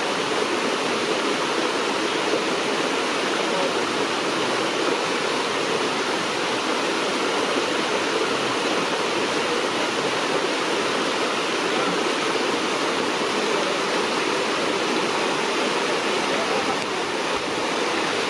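Steady, even rushing noise with no break or change.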